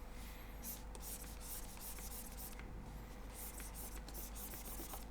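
Stylus scratching across a graphics tablet's surface in a series of short sculpting strokes, over a faint steady hum.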